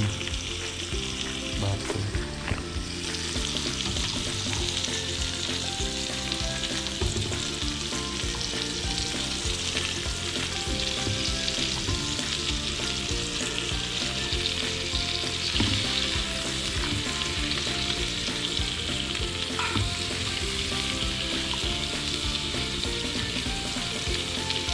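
Beef steak frying in butter in a nonstick pan, with a steady sizzle and spatter. The sizzle grows fuller about three seconds in, as another pat of butter goes into the hot pan.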